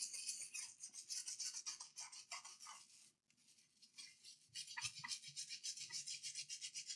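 Brush scrubbing a laptop motherboard with water to clean off sticky liquid-spill residue: rapid back-and-forth strokes, several a second, with a brief pause about three seconds in.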